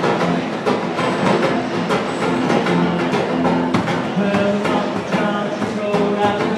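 One-man band playing: an electric guitar over a steady beat of drums and cymbals struck from a backpack rig.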